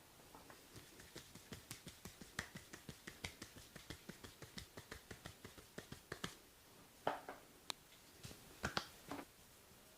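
Percussive massage strokes: fast, even taps at about five a second for some six seconds, then a few louder, separate smacks near the end.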